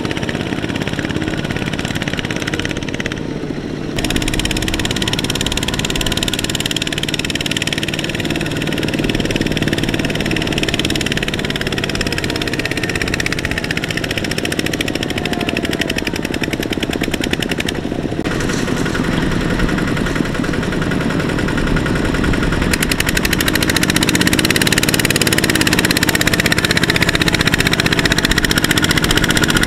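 Single-cylinder diesel engines of Kubota RT120 power tillers running hard under load, pulling trailers of rice sacks through deep mud. The engine sound shifts between shots about 4, 18 and 23 seconds in, and from about 23 seconds a quick, sharp exhaust beat runs under it.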